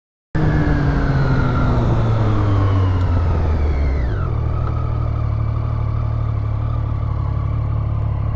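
Motorcycle engine heard from an onboard camera while riding. Its revs fall steadily for about four seconds as the bike slows, then it runs at a steady pitch.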